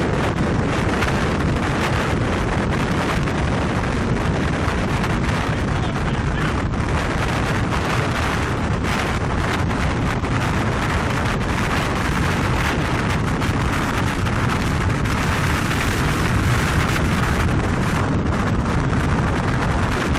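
Strong wind from the tornado's circulation buffeting the microphone: a loud, steady rushing noise, heaviest in the low end.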